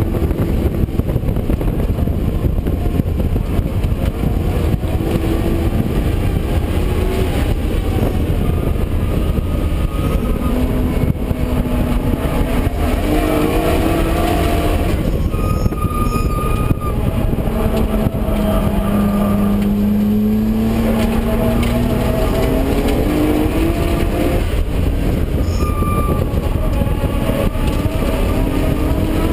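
Nissan R32 Skyline GT-R's twin-turbo straight-six engine under hard track driving, heard from inside the cabin: revs climb and fall with gear changes and corners. Near the middle the note drops away as the driver lifts off, then climbs steadily from low revs as it accelerates again.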